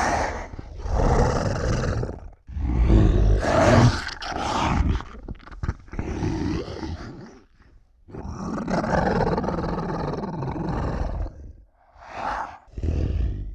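Zilla's monster roars and growls, a sound-effect creature voice: a string of about six calls with short breaks between them, the longest running about three seconds and the last two short.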